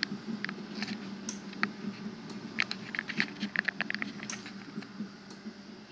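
Irregular clicking and tapping of a computer keyboard and mouse, busiest in the middle, over a steady low hum.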